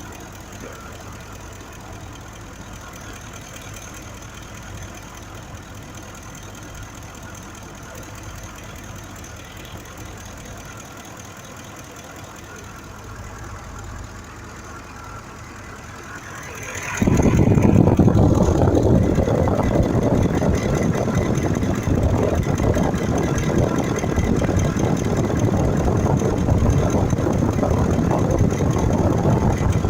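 Ford 5.4 V8 engine idling steadily and fairly quietly, misfiring on cylinder 2 from a mechanically failing fuel injector. About halfway through, a much louder, rougher running noise starts suddenly and continues.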